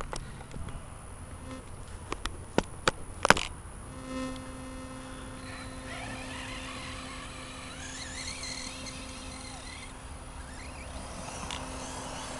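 Arrma Talion 6S RC truck's brushless motor whining, rising and falling with the throttle as it drives through high grass, over a steady low buzzing hum. A few sharp clicks come in the first few seconds, the loudest about three seconds in.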